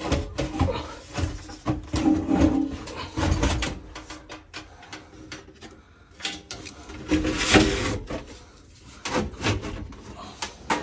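Irregular knocks, clicks and rattles of hands working on an air handler during a blower motor replacement, with one louder knock about seven and a half seconds in.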